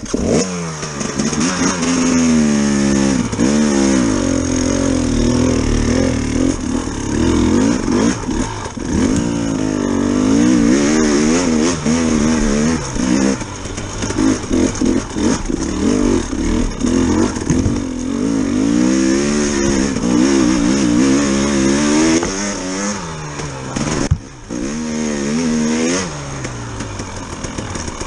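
Dirt bike engine running under load, its pitch rising and falling every second or two as the throttle opens and closes over rough trail. The engine drops off briefly near the end.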